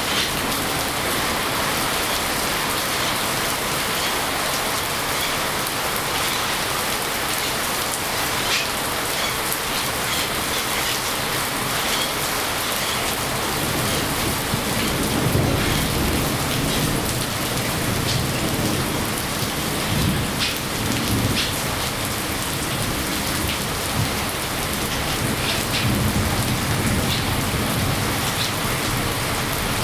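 Steady rain: a dense, even hiss with the patter of drops. A low rumble comes in about halfway through and swells twice.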